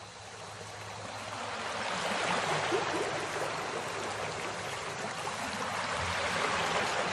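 Steady rush of running water, swelling up over the first two seconds and then holding even.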